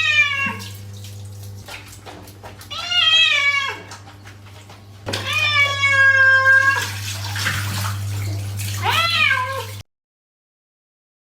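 Domestic cat meowing: four drawn-out meows, the third the longest, over a steady low hum. The sound cuts off abruptly near the end.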